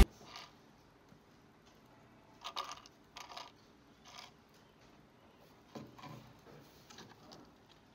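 Faint handling noises: a few short, soft clicks and rustles as a clear PET plastic cup with a dome lid is picked up and turned in the hand.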